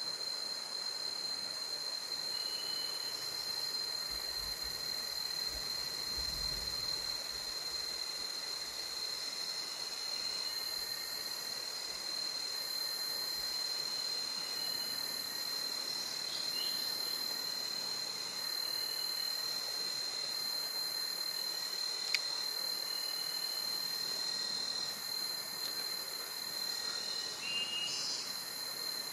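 Rainforest insect chorus: a continuous high-pitched insect drone with a second, higher buzz pulsing on and off about every two seconds, and a few short bird chirps.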